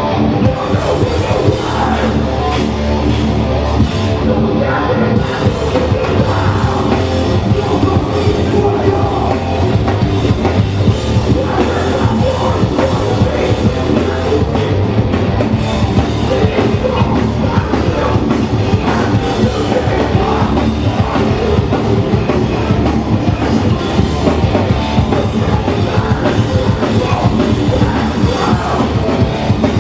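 Hardcore punk band playing live and loud: distorted guitars, bass and a pounding drum kit, with shouted vocals.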